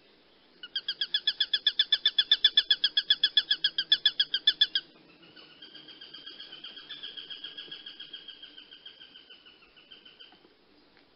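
A hawk's rapid chattering call: a loud run of sharp, high notes at about ten a second for some four seconds. A second, softer run follows and fades away.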